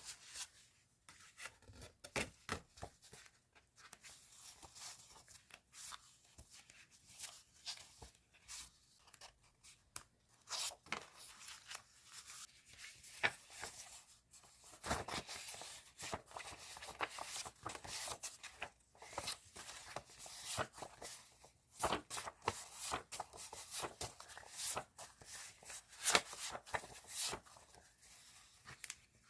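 Paper and plastic stationery packaging being handled and unwrapped by hand: irregular crinkling, rustling and tearing sounds.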